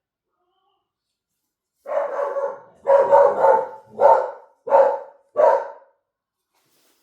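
Dogs barking: a quick run of about six barks that starts about two seconds in.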